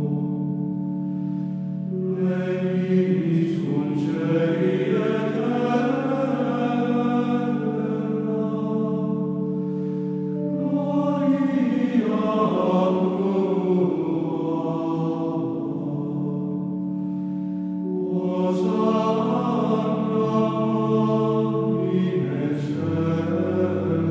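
Sacred choral chant: voices singing slow phrases over long held chords.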